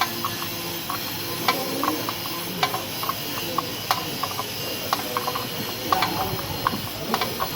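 Irregular metallic clinks and taps from hand tools and parts being handled while a reciprocating compressor is dismantled, over a steady hiss.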